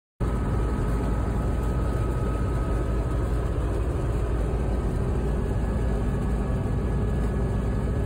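Massey Ferguson 860 combine running steadily while harvesting, heard from inside the cab: a constant low engine rumble with a faint steady whine above it.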